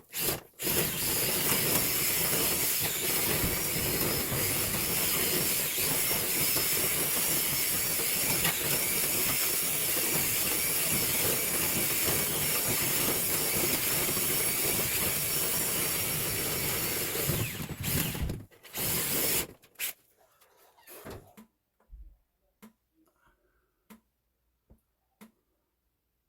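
A motor-driven machine runs steadily with a loud rush of air for about seventeen seconds, then cuts off, followed by a few light clicks and knocks.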